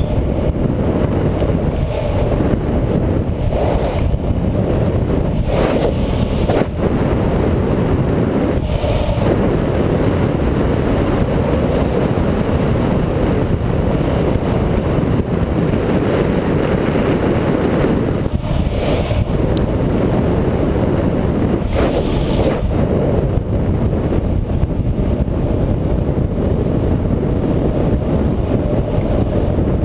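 Steady, loud wind rushing over a helmet-mounted action camera's microphone as a downhill skateboarder travels at speed on an asphalt road, with a few brief louder gusts.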